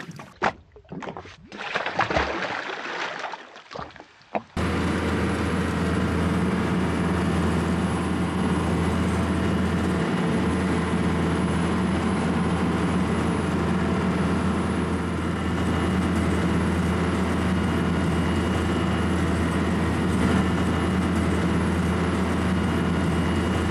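A few seconds of scattered knocks and handling noise as a fish goes back over the side. Then, about four and a half seconds in, a sudden switch to a boat's engine running steadily under way: a constant low drone with a rushing hiss of water and wind over it.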